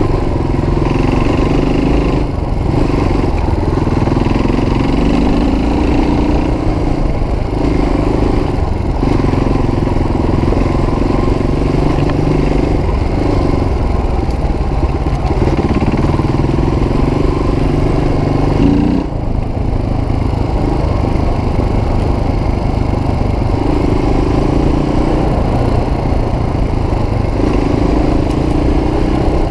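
Suzuki DR350's single-cylinder four-stroke engine running under way on a dirt trail, its note swelling and easing every few seconds as the throttle opens and closes. About two-thirds of the way through, it revs up quickly and then briefly drops.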